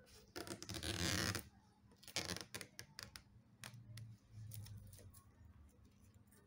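Double-sided adhesive tape being stripped and scraped off the edge of an iMac's screen panel: a noisy tearing stretch of about a second, a shorter one a second later, then light clicks of handling.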